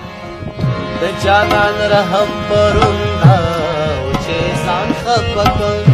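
Pashto ghazal music: tabla drumming, its deep strokes gliding in pitch, under a melody that bends and wavers, with no words sung.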